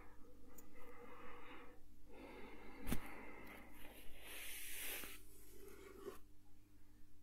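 Soft rustling and brushing of a hand and pencil over a sheet of lined paper, with one sharp tap about three seconds in.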